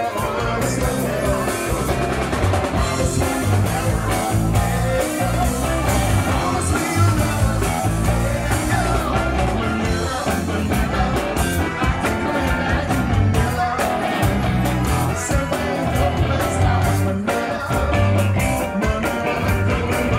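Upbeat pop-rock band music with a steady drum beat, bass and guitar, and some singing.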